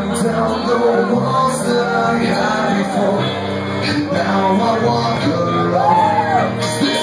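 Live rock band playing loudly: guitars, bass and drums under a lead vocalist who sings with shouted lines, with occasional cymbal crashes.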